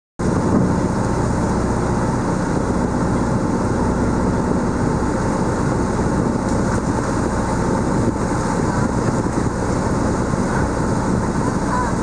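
Steady low drone of a drift-ice cruise boat's engine under way, with a constant rushing of water.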